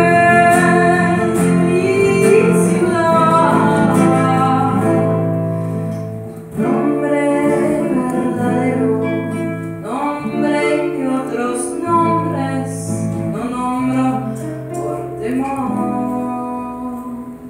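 A live song with a woman singing long held notes, accompanied by two acoustic guitars.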